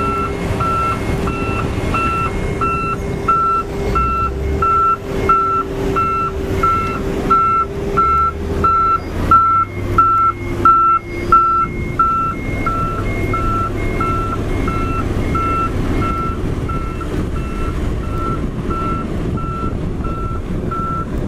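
A truck's reversing alarm beeping about three times a second over a diesel engine running, with a run of irregular knocks in the middle.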